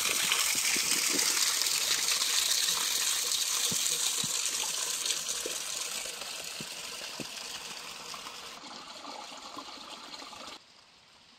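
Running water: a steady, loud hiss that slowly fades and then drops away sharply near the end.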